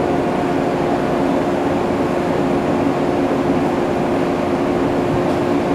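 JR West 223 series electric train standing at a station platform, its on-board equipment humming steadily on one even tone over a steady background noise.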